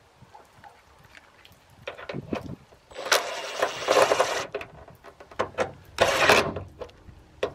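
A drill with a socket on an extension tightens a bolt on a metal hood bracket in two short spurts. The first runs about a second and a half, starting about 3 s in, and a briefer one follows about 6 s in, after a few light knocks as the socket is set on the bolt.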